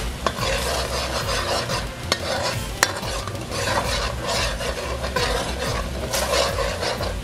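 Metal spoon stirring and scraping through curry sauce in a metal pot, with the curry sizzling as it cooks down over high heat. A few sharp clinks of the spoon against the pot.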